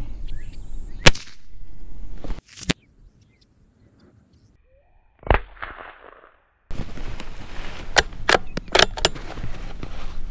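A single sharp shot from a Ruger Precision .22 LR bolt-action rifle about a second in, the loudest sound. Later comes another sharp crack with a short ringing tail, and several sharp clicks over outdoor background noise near the end.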